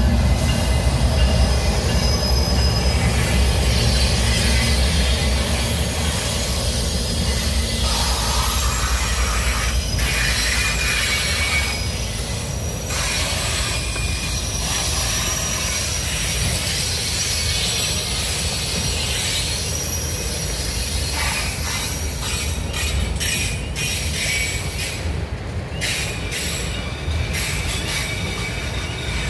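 Freight train passing close by: the low rumble of the last diesel locomotives fades over the first ten seconds or so. Then loaded autorack cars roll by with steady wheel-on-rail noise and high-pitched wheel squeal.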